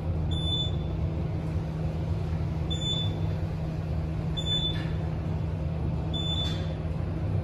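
Otis Gen2 traction elevator car riding upward, a steady low hum of travel inside the car. Four short high beeps come about every one and a half to two seconds, in step with the floor display changing: the floor-passing signal as the car goes by each floor.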